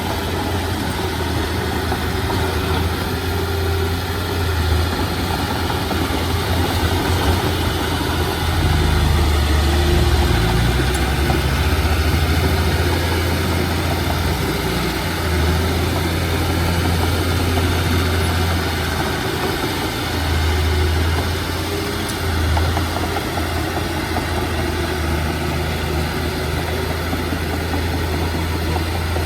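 Heavy diesel engine of earthmoving machinery running steadily, with its low drone swelling louder several times as it works under load.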